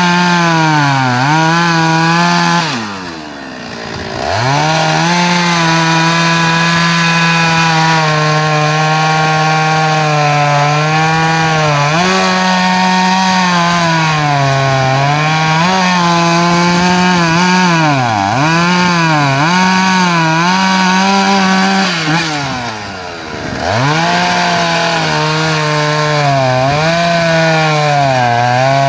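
Shindaiwa 757 two-stroke chainsaw running at full throttle while cutting through a large log, its engine speed repeatedly sagging under load as the chain bites and recovering. Twice, about three seconds in and again about twenty-three seconds in, the throttle drops off briefly and the revs fall before it screams back up.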